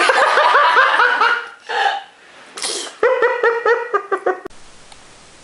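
Small child laughing in quick, rhythmic high-pitched giggles, broken about two and a half seconds in by a short sneeze-like burst, then laughing again. The sound cuts off suddenly after about four and a half seconds.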